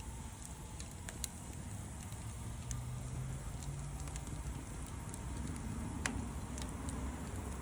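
Wood bonfire crackling, with scattered sharp pops and one louder pop about six seconds in, over a low steady rumble.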